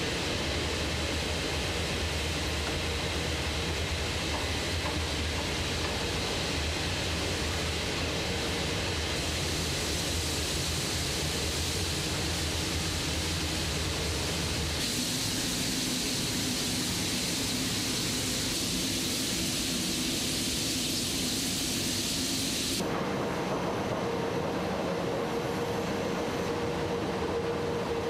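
Steady industrial machinery noise in an aluminium works: a continuous rumble and hiss with a low hum. It changes abruptly about 15 seconds in and again about 23 seconds in, and the last part carries a steady mid-pitched drone.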